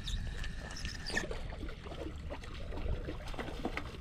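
Wind rumbling on the microphone while a fishing rod is cast, with a thin whine for about the first second as line pays out, ending in a sharp click, then small reel and handling clicks.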